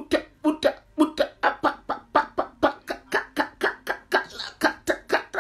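A woman praying aloud in tongues (glossolalia): a fast, even stream of short repeated syllables, about five a second.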